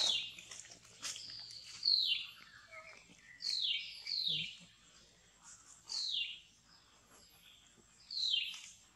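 An animal's high, short calls, each a quick falling whistle, repeated about six times at uneven gaps of one to two seconds.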